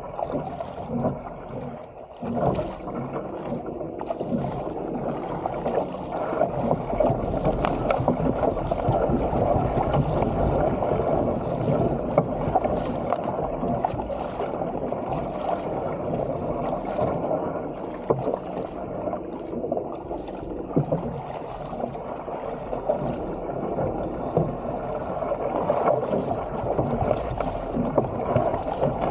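Steady rush and splash of sea water along a fishing kayak's hull as it is paddled briskly, with the paddle blades dipping in on each stroke.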